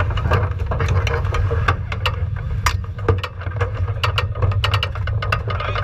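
Steady low engine rumble from racing engines idling, with frequent sharp clicks and knocks on top.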